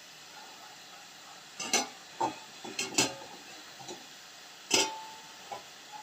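A utensil knocking and scraping against a frying pan several times as chicken pieces are stirred, over a faint steady sizzle of the chicken frying.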